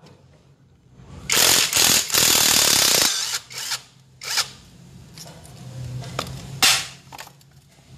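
A power tool runs on the scooter's flywheel nut for about two seconds, then a few short, sharp clicks from the tool on the nut.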